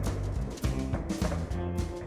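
Background music with drums and a low bass line.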